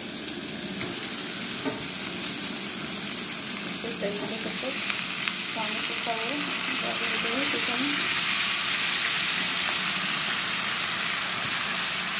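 Raw chicken pieces sizzling as they fry in hot oil and onion-tomato masala in a pan, a steady sizzle that grows slightly louder partway through.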